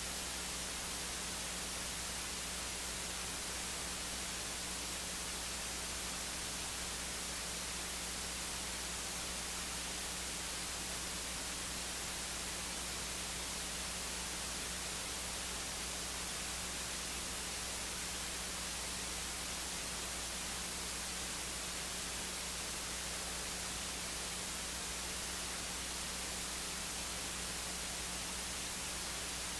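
Steady electronic hiss with a low hum underneath, the bare noise of the audio feed; no other sound stands out.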